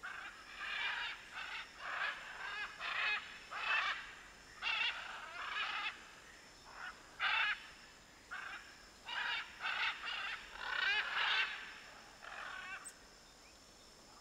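Scarlet macaws squawking: a long string of short, harsh calls, one after another, that stops about a second before the end.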